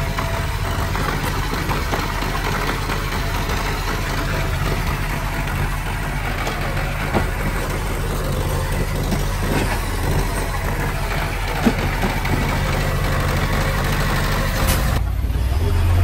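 Heavy diesel engine of earthmoving equipment running steadily, with a few short knocks and clanks on top. Near the end the sound shifts abruptly to a deeper, stronger engine note.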